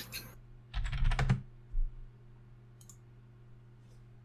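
Computer keyboard keystrokes: a quick run of clicks about a second in, then a few faint scattered clicks, over a steady low electrical hum.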